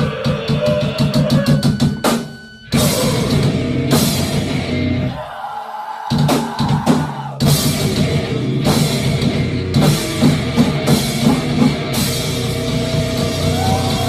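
Live rock band playing a heavy instrumental passage driven by the drum kit: a rapid drum fill near the start, a short stop about two seconds in, a thinner stretch without the low end from about five to seven seconds, then the full band returns with cymbal crashes.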